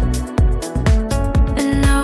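Deep lounge electronic music with a steady kick drum beat under sustained synth tones.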